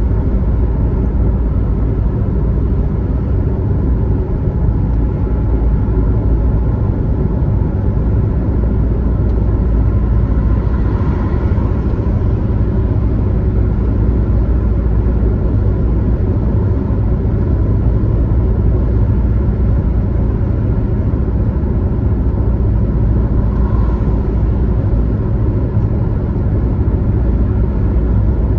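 Steady low rumble of a car driving on a highway, with two brief swells, the first about eleven seconds in and the second some thirteen seconds later.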